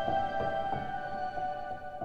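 Soft instrumental background music: sustained tones with notes struck about three times a second.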